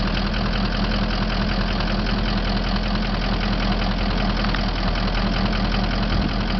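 Vehicle engine idling steadily with an even, low hum.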